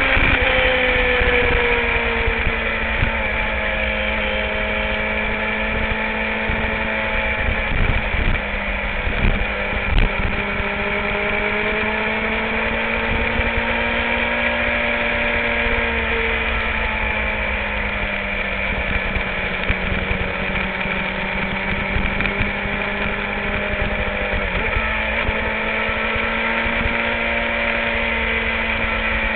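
Sport motorcycle's engine running while riding along the road, its pitch rising and falling gently as the throttle and speed change, with a low rumble of wind on the microphone.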